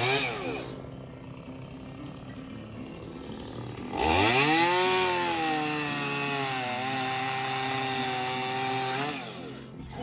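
Small orange chainsaw cutting through a wooden fence post or rail. It winds down right at the start, then about four seconds in speeds up with a rising whine. Its pitch sags for a moment as the chain bites into the wood, then it runs steadily and winds down near the end.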